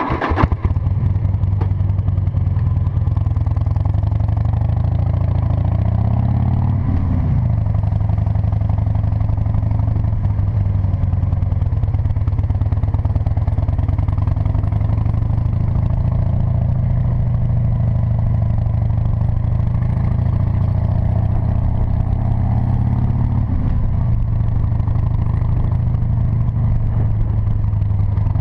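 Cruiser motorcycle engine starting with a brief burst, then running steadily as the bike rides off. Twice the engine note rises and then falls back, once several seconds in and again near the end.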